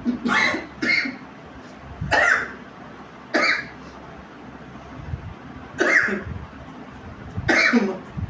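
A person coughing in six short, loud bursts spread over several seconds, set off by snuff sniffed up the nose.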